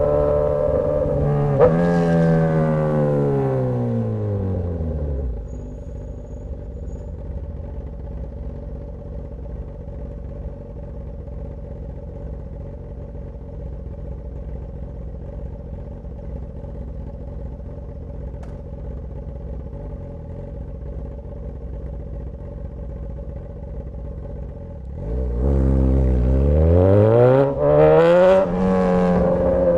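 Straight-piped Suzuki GSX-S1000 inline-four engine winding down from speed to idle over the first few seconds, then idling steadily for about twenty seconds. It then revs up hard as the bike pulls away, with two quick upshifts near the end.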